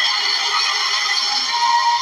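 Background music with sustained high notes.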